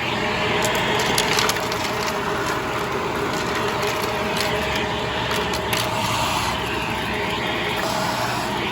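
Shark Powered Lift-Away upright vacuum (ZU632) running steadily with a constant whine, picking up porch debris that crackles and clicks through it.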